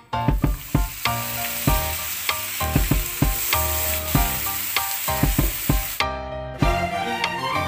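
Marinated chicken pieces sizzling in oil in a non-stick frying pan, a steady hiss broken by many sharp pops and clicks as they are turned with tongs. About six seconds in the frying cuts off and background music follows.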